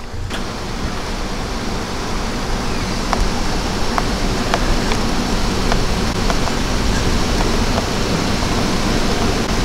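Steady rushing noise that slowly grows louder, with a few faint ticks in the middle.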